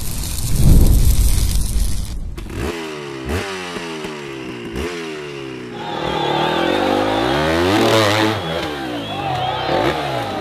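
A loud low rumble, then enduro motorcycle engines revving in sharp rises and falls about every second and a half. From about six seconds several engines rev over one another, with crowd noise.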